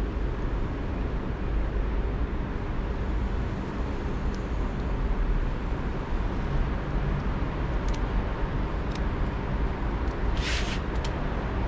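Steady outdoor background rumble and hiss, with a few light clicks from electric scooter wiring connectors being handled and, near the end, one brief sharp hiss.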